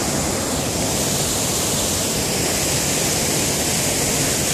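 Steady rushing of flowing river water, an even noise without breaks.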